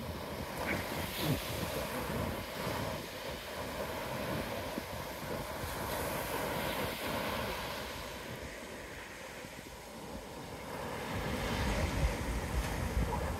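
Surf washing onto the beach in a steady hiss that swells and ebbs. Wind buffets the microphone with a low rumble that grows louder near the end.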